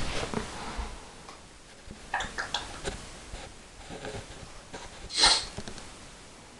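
African grey parrot making a few small clicks, then one short, breathy, sniff-like noise a little after five seconds in, the loudest sound here.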